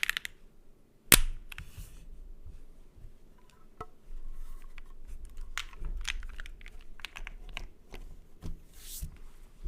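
Keychron Q10 mechanical keyboard with BSUN Cliff tactile switches on a POM plate and doubleshot ABS keycaps, keys pressed one at a time rather than typed in a run: scattered separate clacks, a sharp loud one about a second in.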